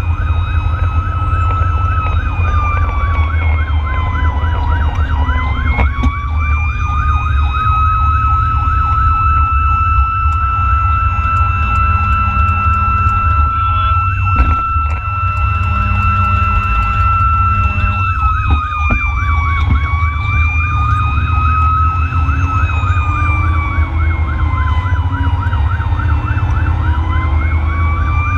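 Fire engine sirens on an emergency response: a wailing siren rises and falls slowly, then holds steady at its top pitch for about twelve seconds in the middle before winding down and wailing again. A faster warbling siren runs under it. Beneath both is the loud, steady rumble of the truck's engine and road noise.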